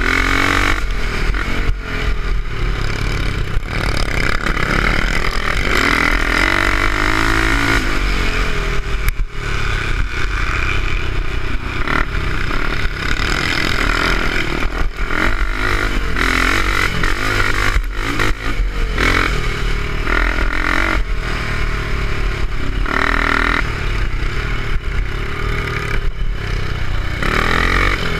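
350 BSA single-cylinder four-stroke scrambler engine under racing throttle, its pitch rising and falling as the revs change. Heard from a helmet camera, with a steady rush of wind on the microphone and knocks and clatter from the bike over bumps.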